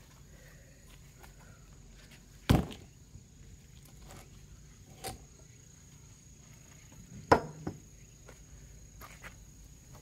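Heavy wooden thuds and knocks as a large firewood log is tipped over onto its side and a sledgehammer is handled on a concrete floor: a deep thud about two and a half seconds in, a lighter knock around five seconds, and a sharp knock with a quick second tap a little after seven seconds.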